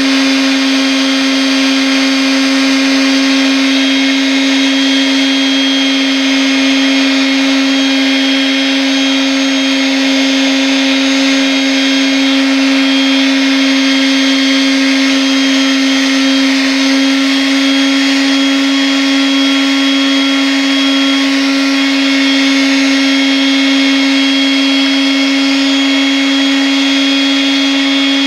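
Electric sander running continuously at a steady speed: a constant motor hum with a hiss over it.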